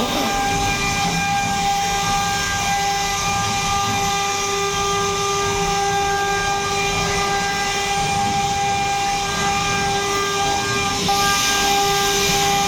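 CNC router spindle running at speed: a steady high-pitched whine over a noisy hiss, with the hiss growing louder near the end.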